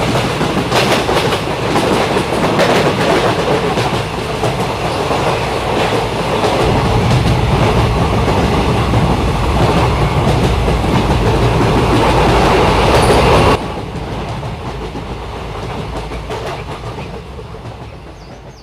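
Train running on the track, its wheels clattering over the rail joints. The noise drops suddenly about three-quarters of the way through, then fades away.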